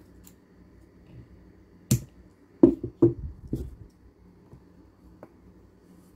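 Chunky plastic beads on stacked kandi bracelets clicking against each other and the beadwork as the wrist and hands move. One click about two seconds in, then three louder clacks close together about a second later, and a faint tick near the end.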